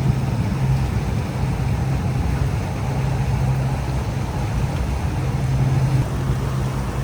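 Motorboat engines running with a steady low drone that swells and eases every second or two, under a constant rushing noise.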